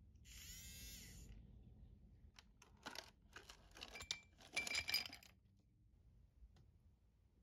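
A battery handheld milk frother whirs for about a second. Then, from about two seconds in, ice cubes tip into a tall drinking glass with a run of clinks and knocks that is loudest near the end and stops a little after five seconds.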